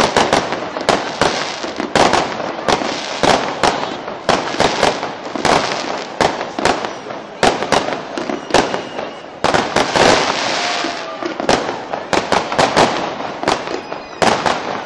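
Fireworks display: aerial shells bursting in a rapid, unbroken run of bangs, two or three a second, with crackling and hiss filling the gaps between them.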